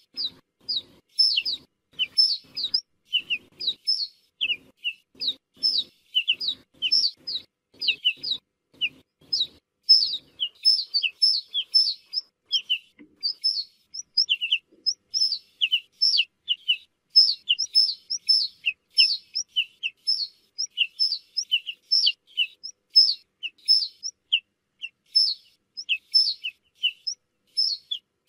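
Ortolan bunting calling: a steady run of short, sharp, downslurred notes, about three or four a second, some higher and some lower in pitch.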